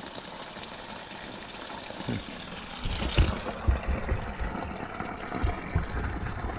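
Steady rush of running water. About three seconds in it becomes louder splashing from a thin stream of water pouring out of a culvert pipe into a shallow pool, with irregular low rumbling thumps.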